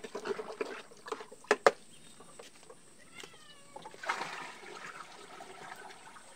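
Liquid sloshing as a pesticide mix is stirred by hand in a plastic bucket, with two sharp knocks about a second and a half in. About four seconds in comes a short splashing rush as the mix is tipped into a plastic drum.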